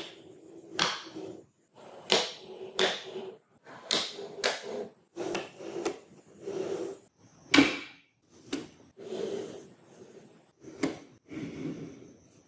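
Small neodymium magnetic balls clicking and clacking as they are snapped together and placed by hand, with softer rattling between the irregular clicks. The sharpest click comes a little past halfway.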